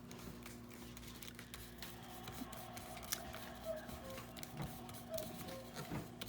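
Light paper handling: small scattered clicks and rustles as paper is pressed and smoothed down over glue, over a faint steady hum.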